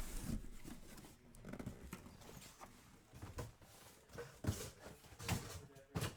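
Scattered soft knocks and light rustles of cardboard card boxes and packs being handled and set down on a table, a few taps a second apart and more frequent in the second half.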